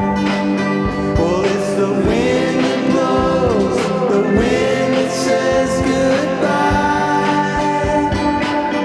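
Live band music: guitars and sustained chords over a steady beat, with a gliding melody line from about a second in until about six and a half seconds in.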